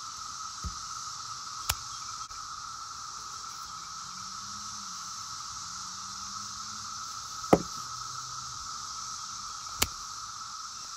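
Steady drone of cicadas, broken by a few sharp knocks, the loudest about seven and a half seconds in.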